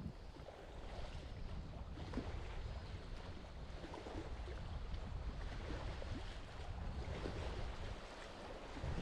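Wind rumbling on the microphone over sea waves washing against the shore.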